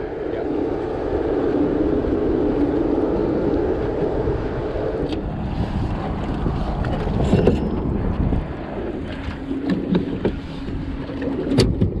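A boat's outboard motor running while the boat moves, with wind buffeting the microphone. The engine note falls to a lower, quieter tone partway through, and there are a few short knocks.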